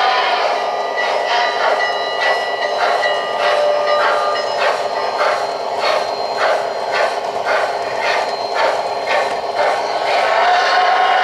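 O-gauge model train rolling slowly on three-rail track, clicking evenly about three times a second, with a steady hum that comes back near the end.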